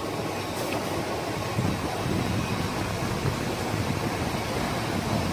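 1988 Bobst folder gluer running at production speed, feeding folded boxes onto a stacker's delivery belt: a steady, even machine noise.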